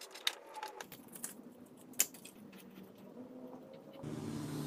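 Light clicks and taps of small items being handled and set down, a few sharper than the rest. About four seconds in, a steady low hum starts abruptly.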